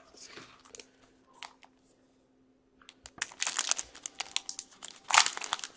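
Plastic trading-card pack wrapper crinkling as it is handled and torn open, starting about three seconds in after a few faint ticks.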